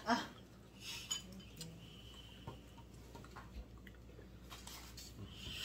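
Spoon and fork scraping and clinking against a plate of rice and meat as someone eats, in a few short, light scrapes and taps.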